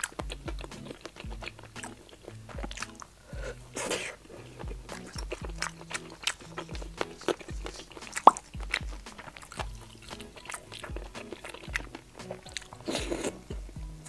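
Close-miked chewing and biting of broth-soaked oden skewer food, with wet mouth clicks and a louder wet bite near the end, over background music with a repeating bass line. A single sharp click comes a little after eight seconds in.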